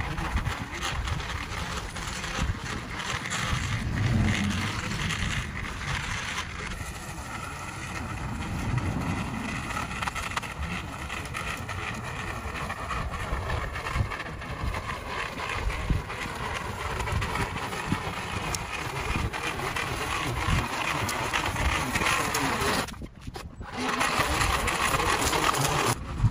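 Gas string trimmer running steadily as it cuts weeds along the base of a fence and the sidewalk edge, its engine whine wavering in pitch as it works. The sound drops out briefly near the end, then comes back.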